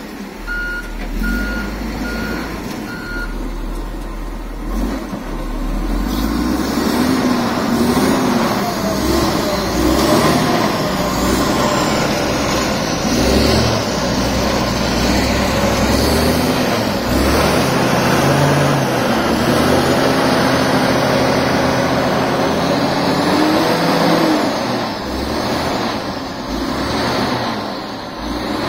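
Komatsu GD755 motor grader's diesel engine running under load while clearing snow, its pitch rising and falling as it works. A reversing alarm beeps four times in the first few seconds.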